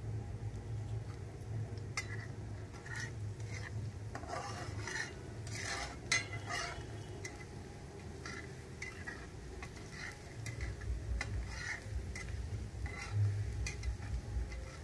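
A flat steel spatula scraping and stirring chopped onion frying in oil in a metal kadhai, in a run of short scrapes over a light sizzle. A steady low hum runs underneath.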